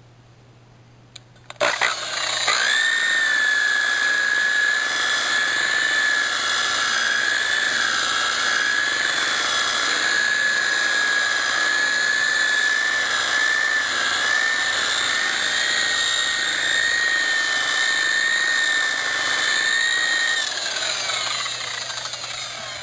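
Electric rotary car polisher with a buffing bonnet starting up about a second and a half in and running steadily with a high whine while buffing compound into a freshly wet-sanded clear-coat panel. Near the end it is switched off and spins down, its whine falling in pitch.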